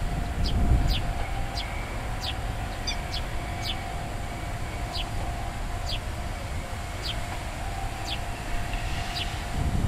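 A bird chirping over and over in short, high, falling notes, about one every second, over a steady low rumble.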